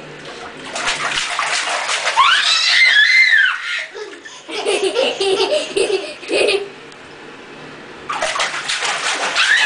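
Toddler splashing the water in a plastic baby bathtub and laughing, with a high squeal that rises and falls about two seconds in. The splashing comes in two spells, about one to four seconds in and again from about eight seconds in, with bursts of laughter between them.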